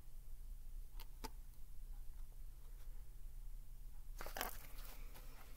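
Paper rustling as a picture book's page is handled and turned, a short burst of rustle near the end, preceded by two faint clicks, over a low steady hum.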